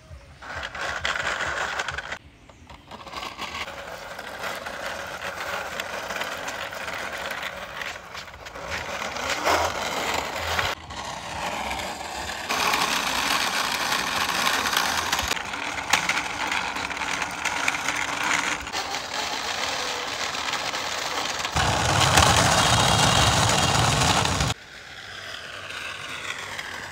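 Plastic toy ambulance pushed by hand along a rough concrete wall top, its wheels and drive gearing rattling and whirring. The noise comes in several takes that start and stop abruptly, the loudest and deepest near the end.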